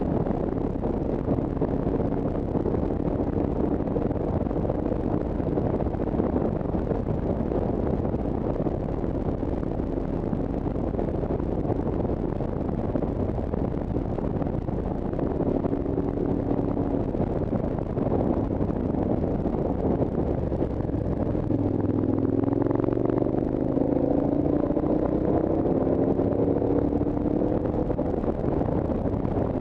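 Vehicle engine running under steady wind rush. In the second half its note climbs and drops several times, as when accelerating through the gears.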